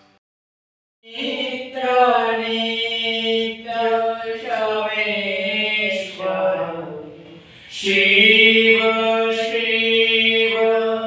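A devotional hymn chanted by several voices in long held phrases, starting about a second in after a brief silence.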